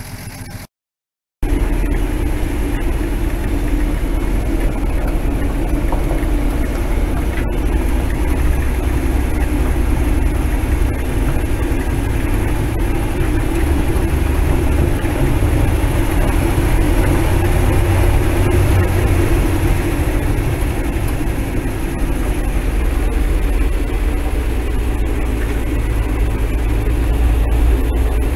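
Jeep Tornado 230 overhead-cam inline-six in a Kaiser Jeep military truck, running steadily under way with a deep, even rumble, heard from inside the cab. The engine has a new timing chain and gears and runs smoothly. A brief gap of silence about a second in.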